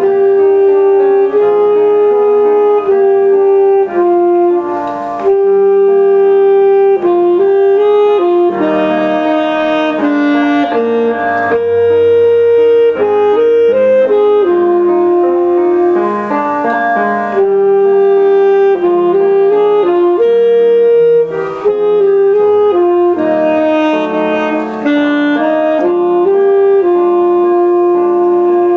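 Saxophone playing a melody of long held notes and short runs over piano-like accompaniment.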